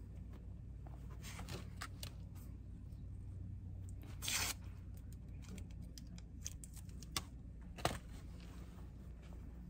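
Hoodies and packaging being handled: faint rustling and small ticks, with a short tearing sound just after four seconds and two sharp clicks between seven and eight seconds, over a steady low hum.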